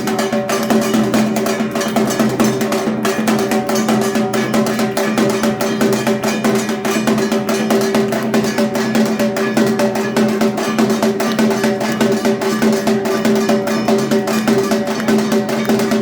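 Dhak drums beaten in a fast, unbroken rhythm, with a bright metallic clanging percussion ringing along with the drum strokes.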